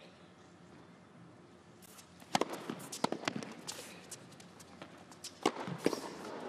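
Tennis point on an indoor hard court: a sharp racket strike on the serve about two seconds in, then a quick run of ball bounces and racket hits, and two more hard racket strikes near the end.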